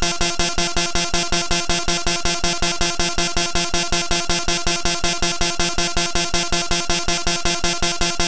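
Bytebeat synthesizer tone imitating an MRI scanner: a steady buzzing drone pulsing evenly about four times a second, unchanging throughout.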